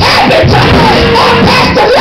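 Loud church worship music, with held low notes, and voices in the congregation shouting and singing over it.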